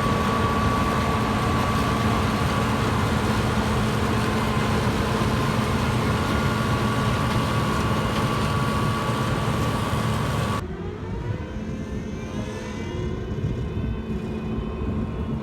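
John Deere 9400 combine harvester running steadily while harvesting, its engine and threshing machinery carrying a steady whine. About ten and a half seconds in the sound cuts off abruptly to a quieter machine sound whose pitch glides up and down.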